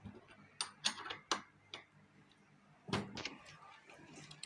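Scattered sharp clicks and small knocks as cables and parts are handled inside an opened welding machine, with a louder cluster of knocks about three seconds in.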